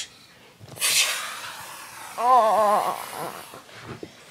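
A person making vocal sound effects: a breathy hiss about a second in, then a short, wavering, trembling cry near the middle.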